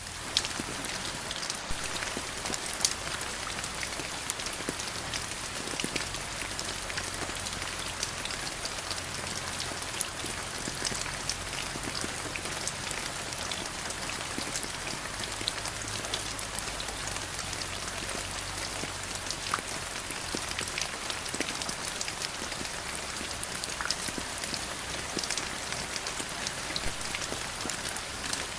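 Steady rain falling, with many individual drops ticking on a surface through it.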